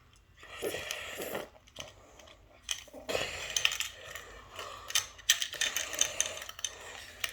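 Small metal keys clinking and rattling as they are handled, with scattered light clicks and knocks.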